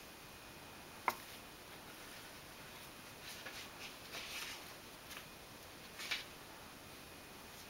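Cat batting and grabbing at a kiwi branch against a wooden chair: a sharp tap about a second in, then soft scratchy rustles, with another short rustling burst about six seconds in.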